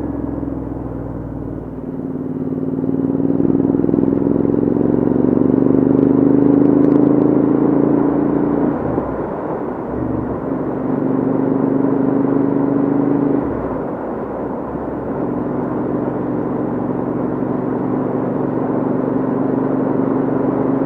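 Royal Enfield Interceptor 650's parallel-twin engine running through aftermarket Hitchcocks headers and shorty silencers under way. The exhaust note climbs in pitch as the bike pulls, drops sharply about nine seconds in and again around fourteen seconds as the rider shifts or rolls off, then climbs again.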